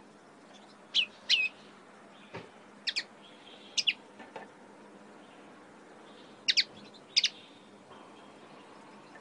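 Caged common linnet calling: sharp chirps that fall steeply in pitch, mostly in quick pairs, in several bursts with a pause of a couple of seconds in the middle. A soft tap is heard about two seconds in.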